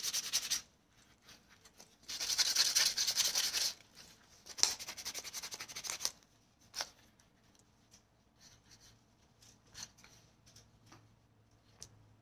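Sandpaper rubbed in quick back-and-forth strokes over a dried-out leather knife sheath, in three short spells. Then only a few light taps and clicks.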